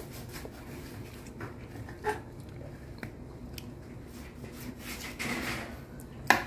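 Kitchen knife cutting through a ripe jackfruit's flesh and rind: quiet slicing and scraping, a longer cut a little past five seconds in, and a sharp knock near the end.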